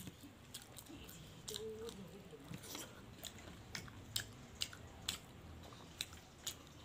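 Close-up chewing and biting of crispy deep-fried Meitei bora fritters: irregular, sharp crunches scattered over softer mouth sounds.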